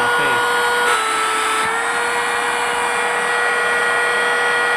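Battery-powered portable car vacuum cleaner running: a steady high motor whine over a rush of air. Its pitch dips briefly about a second in, then settles.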